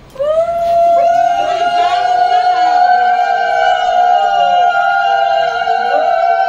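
Several conch shells blown together in long, steady, overlapping notes, starting together just after the start and held throughout, the ritual call of a wedding puja.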